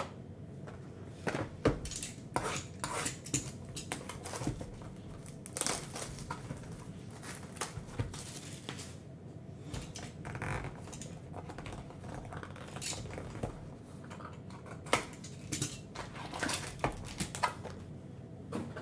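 Hands handling a cardboard trading-card hobby box: plastic shrink wrap crinkling and irregular light taps, clicks and scrapes of the cardboard as the box is unwrapped and its lid opened.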